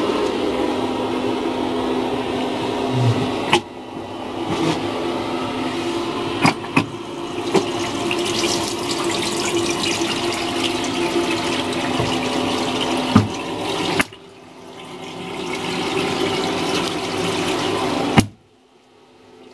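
Tap water running into a washbasin in a small train washroom, a steady rush with a faint hum beneath it and several sharp clicks. The sound falls away suddenly near the end.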